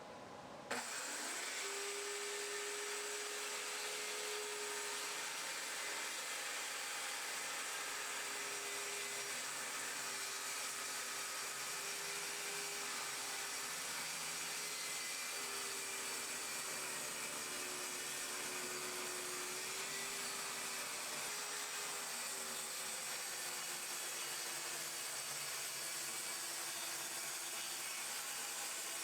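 A steady machine hum with hiss, its single tone wavering slightly in pitch, beginning abruptly about a second in.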